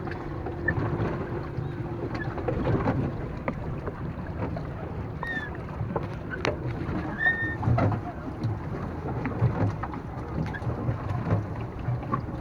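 Small boat moving on water: irregular splashing and knocking of water against the hull, with a couple of brief high squeaks around the middle.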